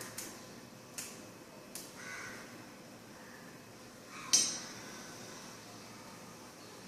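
Light knocks of a dish being handled, three in the first two seconds, then one sharp clink about four seconds in that rings briefly.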